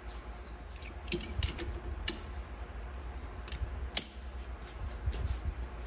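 Irregular metal clinks and taps of hand tools as a stud remover on a ratchet is handled and fitted over a cylinder-head stud in a cast-iron A-Series engine block. The sharpest clink comes about four seconds in.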